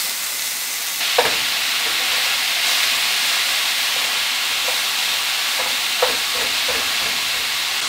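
Ground beef sizzling as it browns in a cast-iron skillet, stirred with a wooden spoon that scrapes and knocks against the pan now and then. The sizzle gets louder about a second in.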